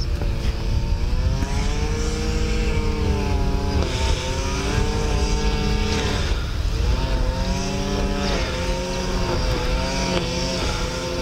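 An engine running, its pitch rising and falling unevenly in stretches of a couple of seconds. Wind rumbles on the microphone.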